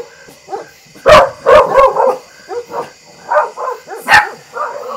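Dogs barking in a rapid, continuous run of loud, sharp barks.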